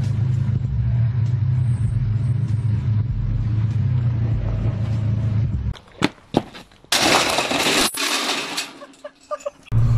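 A steady low hum for most of the first half. Then a person falls onto a road-works barrier: a few sharp knocks and a loud crash lasting about a second.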